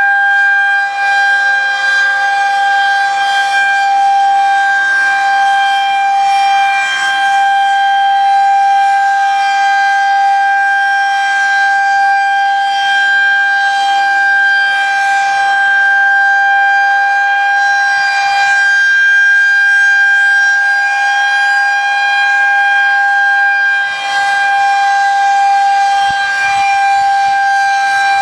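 Outdoor tornado warning siren sounding loudly, holding one steady pitch without rising or falling.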